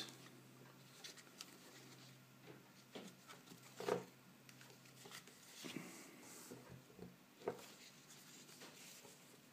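Faint handling noise from a plastic headlamp and its elastic headband being turned over and stretched in the hands. It is low rubbing and rustling with a few soft knocks, the clearest about four seconds in and again later on.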